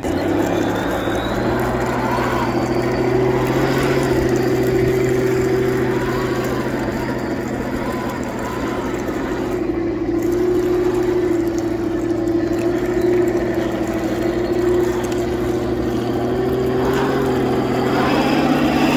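Heng Long 1/16 Tiger 1 RC tank driving, its onboard speaker playing a steady simulated engine rumble that rises and falls slightly in pitch, over the whir of its electric drive and plastic gears.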